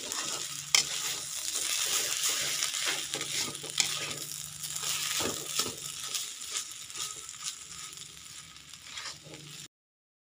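Grated coconut and spice paste stir-frying in oil in a wok: a steady sizzle with the scrape and occasional clink of a metal spatula against the pan. The sizzle fades, then cuts off suddenly near the end.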